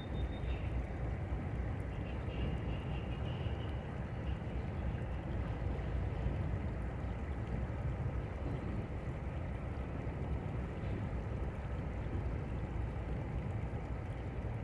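A Norfolk Southern freight train's cars rolling across a steel truss bridge: a steady low rumble that does not let up.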